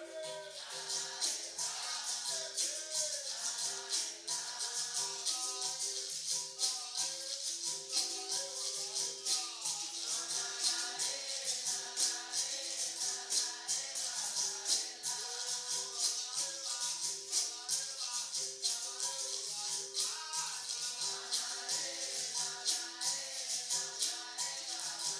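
Live capoeira roda music: berimbaus play a repeating two-note rhythm under the rattle of caxixi shakers and pandeiro jingles, with voices singing over them.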